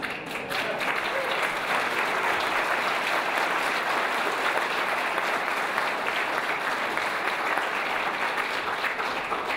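An audience applauding, a steady clapping that starts suddenly and dies away near the end.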